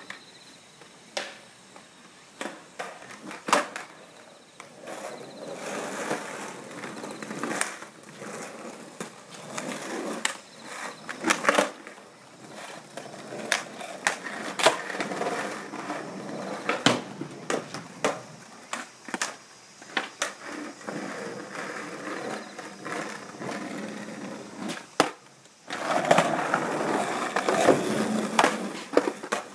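Skateboard wheels rolling over rough concrete, with many sharp clacks of the board hitting the ground as tricks are tried.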